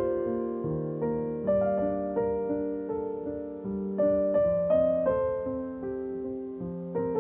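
Gentle instrumental piano music: slow, soft notes and chords, each struck and left to fade, a new one about every half second.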